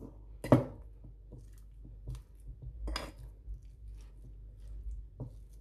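Metal fork mashing soft vegan butter and tomato paste in a white bowl, the fork clinking sharply against the bowl a few times, loudest about half a second in and again around three seconds in.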